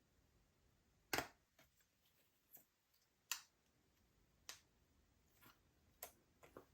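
Slime being worked by hand, giving a string of sharp clicks and pops at irregular intervals, the loudest a little over a second in.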